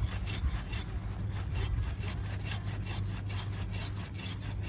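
Hand saw cutting through the trunk of a fir Christmas tree in quick back-and-forth strokes, about two to three a second.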